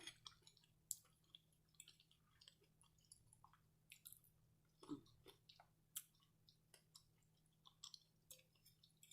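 Faint close-up chewing of soft food, with scattered small wet clicks and smacks of the mouth; a slightly louder smack about five seconds in and another about a second later.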